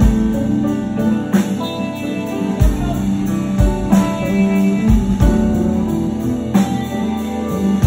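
Live rock band playing a guitar solo: held, sustained guitar notes stepping in pitch over bass and drums, with a few low drum thumps.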